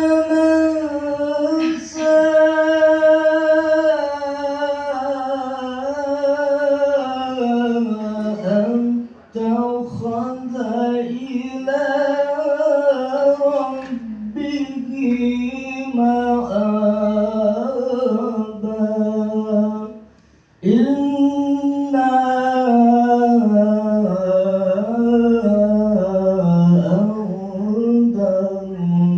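A man recites the Quran in the melodic tilawah style into a microphone: long held, ornamented phrases that waver up and down in pitch, with short breaks for breath, the longest about 20 seconds in.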